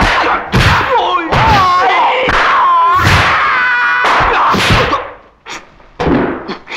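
High-pitched kung fu fighting yells and cries with a wavering pitch, over a run of punch and slap impact sound effects. It quietens about five seconds in, with a last couple of hits near the end.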